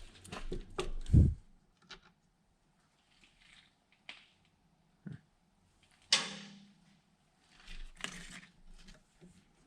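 Scattered knocks and clicks of tools and heavy battery cables being handled, with a loud low thump about a second in and a sharp metallic clank with a brief ring about six seconds in.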